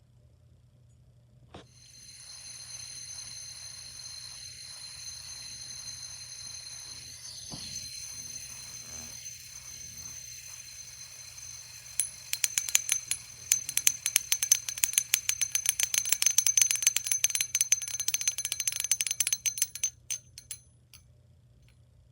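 A fidget spinner flicked into a spin: a click, then a high metallic whir. About halfway through, a fast rattle of clicks joins it, and both stop suddenly about twenty seconds in.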